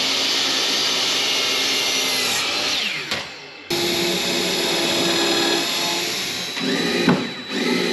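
Electric miter saw running through a cut, then winding down with a falling whine. After an abrupt change about halfway through, a cordless drill runs steadily, boring into a pine frame, and slows near the end.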